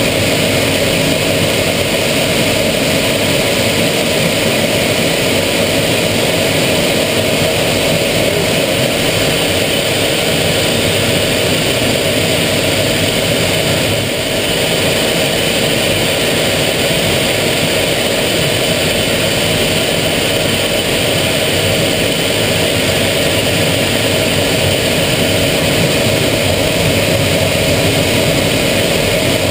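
Aero L-39 Albatros jet trainer heard from inside the cockpit in flight: the steady rush of its turbofan engine and airflow, with a constant whine over it. The level dips briefly about halfway through.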